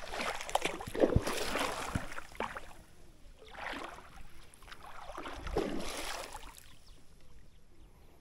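Water sloshing around legs wading through shallow water, in several swells roughly two seconds apart with a few small knocks.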